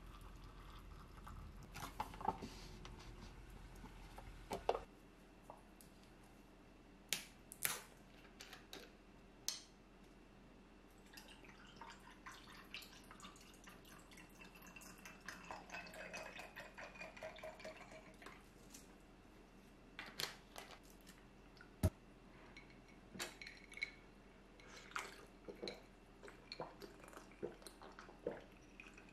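Hot water poured from a pot into a paper cup-noodle cup, stopping a few seconds in. Then knocks and clinks of dishes being set down, and a drink poured from a plastic bottle into a glass of ice. The sharpest knock comes about two-thirds of the way through.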